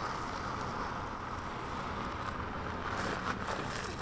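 Range Rover L405 engine running low and steady as the SUV creeps down a steep sandstone slope, with a steady rush of wind on the microphone over it.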